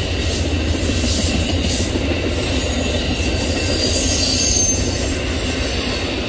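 Amtrak Superliner bilevel passenger cars rolling past at close range: a steady rumble of steel wheels on the rails, with a brief high-pitched squeal about four seconds in.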